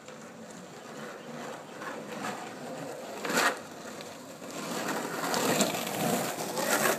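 Carver surfskate's wheels rolling and grinding over rough asphalt, getting louder as the board nears, with a brief loud scrape about three and a half seconds in.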